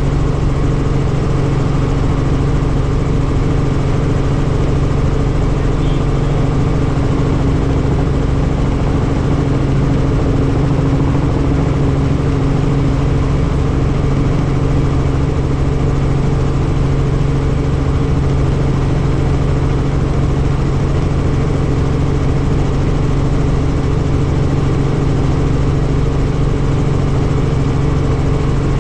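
Helicopter in flight: a steady, unchanging engine and rotor drone with a constant hum.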